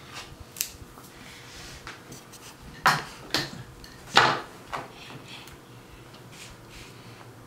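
Plastic tempera paint bottle being handled: a small click under a second in, then four sharp knocks and squelches between about three and five seconds in as the bottle is shaken upside down and squeezed.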